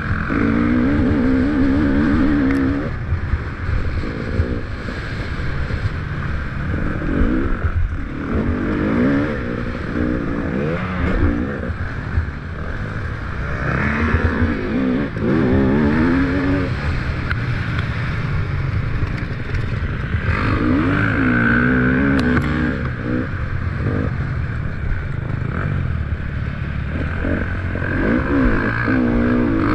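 300cc two-stroke enduro motorcycle being ridden, its engine revving up and falling back again and again as the throttle is opened and closed.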